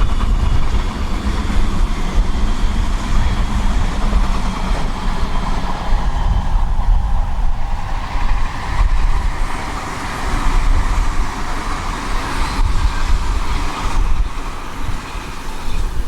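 Odakyu 1000-series electric commuter train running past, a steady loud rumble of wheels on rail and running gear that eases slightly near the end.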